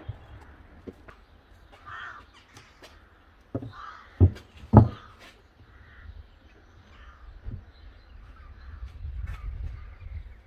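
A few sharp wooden knocks, two of them loud, a little past a third of the way in, as a timber batten is set down on wooden blocks. Harsh caw-like bird calls come now and then throughout.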